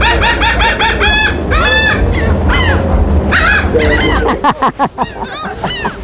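A flock of laughing gulls calling loudly over and over: a fast run of short notes, then longer drawn-out calls, over a steady wind rumble on the microphone. A quick run of sharp thumps comes a little after four seconds in.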